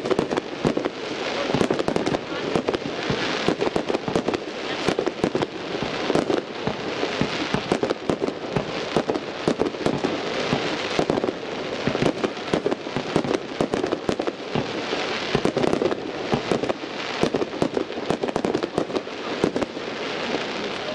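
Fireworks display: a dense, continuous crackle of many rapid pops and bangs that goes on without a break.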